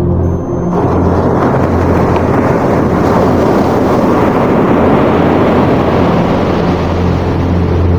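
Sea waves: a rush of surf that comes in under a second in, swells for a few seconds and eases again, over a steady low music drone.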